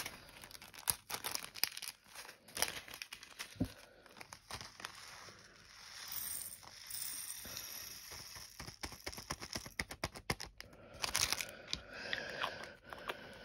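Small plastic bags being handled, crinkling and tearing, with scattered light clicks and taps.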